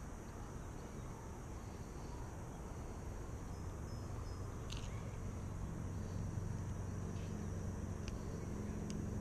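Outdoor ambience: a steady low rumble with a thin, steady high insect-like drone over it, and a few light ticks. A low hum comes in about halfway through.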